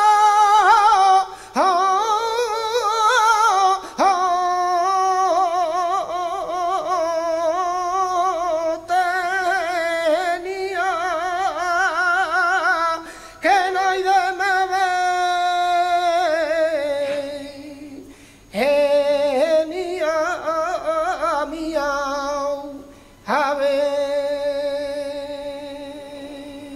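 Male flamenco voice singing tonás unaccompanied, with long melismatic phrases whose pitch wavers and turns around each note. The phrases are broken by short breaths, and the last held note fades out near the end.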